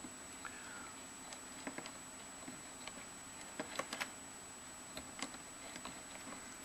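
Faint, irregular light metallic clicks and ticks from the working inside Stephenson's valve gear of a 7mm-scale Collett 2251 Class model locomotive chassis, turned over by hand in full forward gear. A faint short squeak comes about half a second in.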